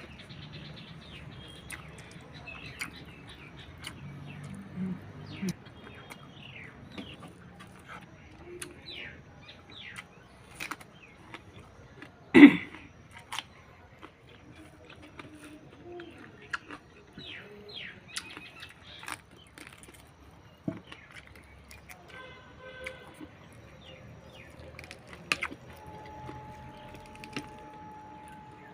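Small birds chirping over and over, short quick falling chirps, with one loud sharp knock about twelve seconds in and a steady held tone near the end.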